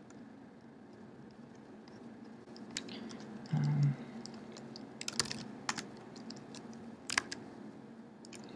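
Scattered computer keyboard keystrokes and mouse clicks, a few isolated taps with small clusters. A short, low hum sounds about three and a half seconds in, the loudest thing heard.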